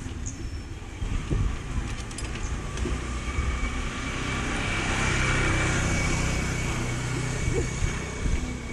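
A motor scooter passes close by: its engine hum and whine build to a peak about halfway through, then ease off. Underneath is a steady rumble with scattered knocks, from the becak's small wheels rolling over a paving-block lane.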